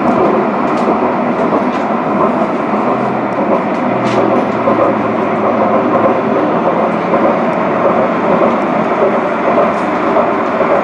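Steady running noise heard inside a moving CAF Urbos 3 tram: wheels rolling on rail, with a couple of faint clicks.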